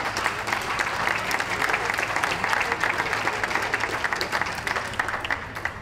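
Audience applauding, a dense patter of many hands clapping that fades near the end.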